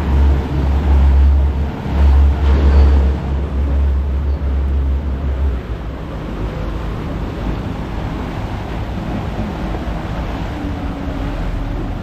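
Wind buffeting the microphone over the steady noise of a small tour boat under way, its wake washing behind the stern. The heavy low wind rumble drops away about halfway through, leaving the even rush of engine and water.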